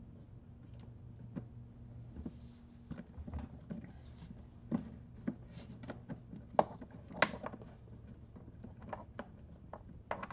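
Hands working a wiring connector and wire up through a hole in a motorcycle's plastic under-seat panel: scattered clicks, taps and rubbing of wire on plastic, with two louder knocks a little past the middle. A low steady hum runs underneath.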